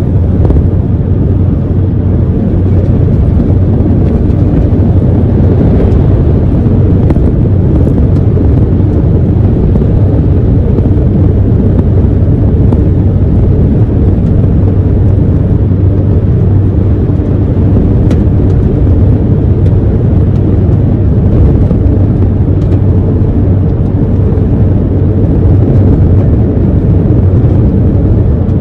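A truck's engine and road noise while cruising at highway speed: a steady, loud low drone that does not change.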